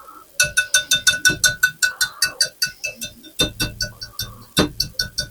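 A whisk beating egg yolks with a dollop of hot chocolate filling in a small bowl: rapid clinking strokes, about six or seven a second, the bowl ringing with each one. The strokes slow and get heavier near the end. It is the sound of tempering the yolks so they don't scramble.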